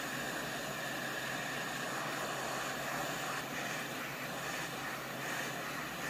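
Hot air rework station blowing a steady hiss of hot air through its nozzle, heating a micro USB connector on a circuit board to melt the solder under it.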